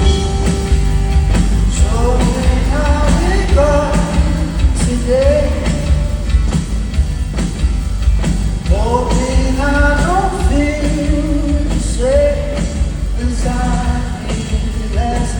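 A live band plays a pop-rock song with a steady heavy bass and drum beat while a male lead singer sings long, sliding vocal phrases in two stretches, in the first half and again near the middle.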